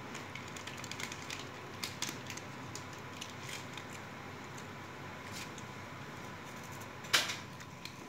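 Fingers pressing keys on a 4x4 membrane keypad: a run of light, irregular clicks and taps, with one much louder sharp click about seven seconds in. A faint steady high tone sits under it.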